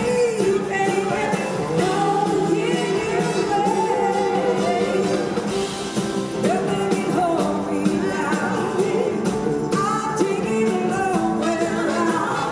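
Live blues-rock band playing: a woman sings lead over electric guitars, bass guitar, keyboards and two drum kits.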